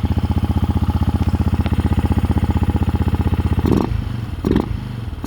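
Benelli TNT 135's single-cylinder engine running at idle with an AP aftermarket intake fitted, drawing air audibly through the new intake with an even firing beat. About three and a half seconds in, the beat breaks with two short throttle blips.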